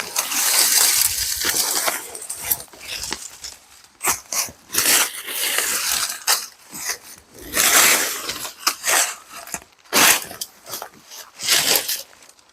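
Brush and dry leaves rustling and crackling in irregular swishes as cut branches are pulled out and tossed aside by hand.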